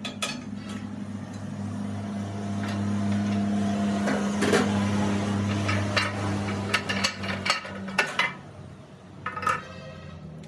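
A machine motor hums steadily while metal parts clink and knock several times. The hum stops about eight seconds in, and one more knock follows.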